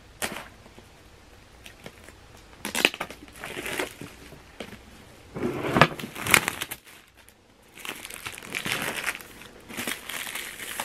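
Clear plastic film being crinkled and peeled off a cardboard laptop box, in irregular rustling bursts with a few sharp taps as the box is handled.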